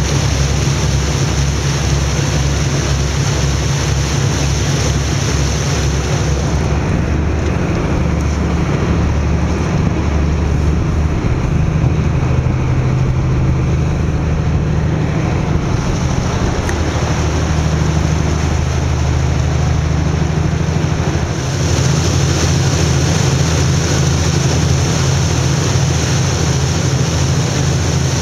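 Tour boat's engine running with a steady, low pulsing hum, under the hiss of wind on the microphone and water rushing past the hull. The upper hiss drops away for a stretch in the middle.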